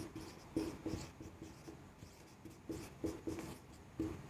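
Marker pen writing on a whiteboard: a quick run of short, irregular strokes.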